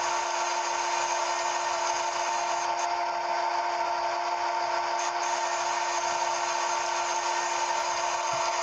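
CNC machine running steadily: a constant whine of several steady tones over an even hiss.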